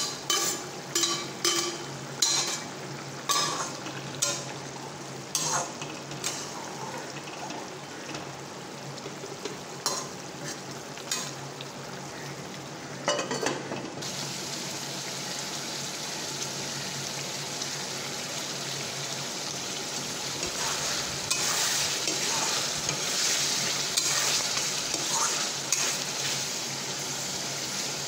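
A metal spatula tapping and scraping against a metal kadhai of simmering pork, a stroke every half second or so at first and then more sparsely. About halfway through this gives way to a steady sizzle of the pork frying, which grows louder near the end, with more spatula clicks as it is stirred.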